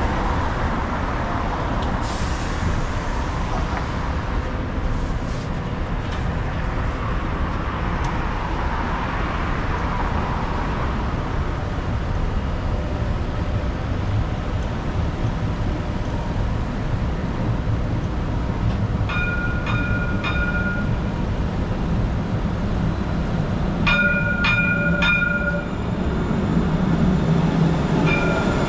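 Dubai Tram running: a steady rumble and rush of the tram, with short runs of high electronic beeping about two-thirds of the way in and again near the end.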